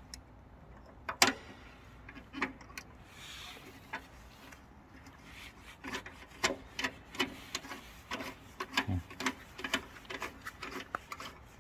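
Plastic retaining knob being screwed down onto a welder's wire-spool spindle by a gloved hand. A few sharp clicks come first, then a quick run of small clicks and knocks with glove rubbing for the last five seconds or so, as the knob tightens against its spring.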